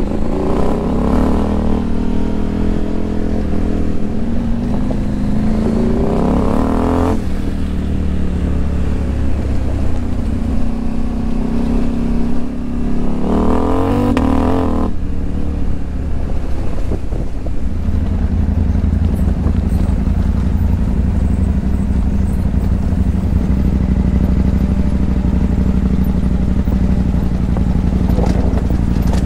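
Motorcycle engine running under way. Its pitch rises three times in the first half and drops off sharply each time, then it runs at a steady pitch for the last ten seconds or so.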